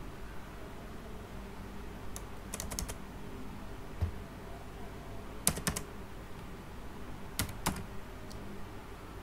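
Computer keyboard typing: scattered keystrokes in short groups of two to four clicks.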